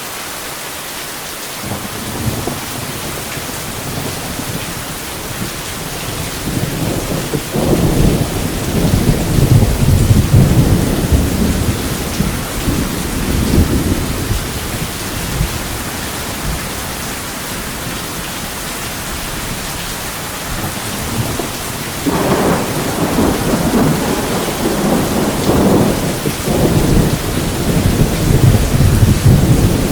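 Steady heavy rain with rolling thunder. A long rumble builds a couple of seconds in, swells to its loudest between about 8 and 14 seconds, and dies away; a second, sharper clap comes about three quarters of the way through and rumbles on.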